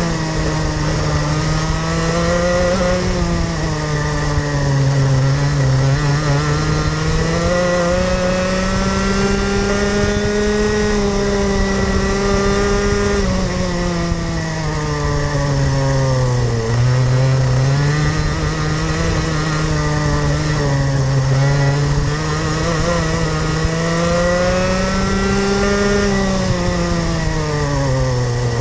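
Rotax Max Junior 125cc two-stroke kart engine heard onboard the kart at speed. Its pitch climbs on the straights and drops several times as the driver lifts off for corners, with the sharpest drop a little past halfway.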